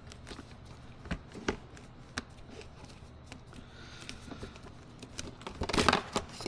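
Scattered clicks and knocks of a car door latch assembly being handled and worked loose inside the door, with a louder rattling cluster near the end.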